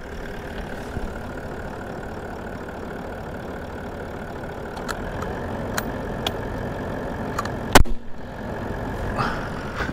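Vehicle engine idling steadily, with a few light clicks from about five seconds in and one loud rifle shot near the end.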